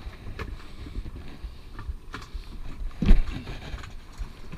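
Low rumble of wind on the microphone aboard a small boat, with a few light clicks and a loud dull knock about three seconds in.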